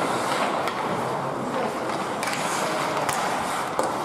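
Ice hockey play: skate blades scraping across the ice and a few sharp clicks of sticks on the puck, over a steady murmur of voices in the rink.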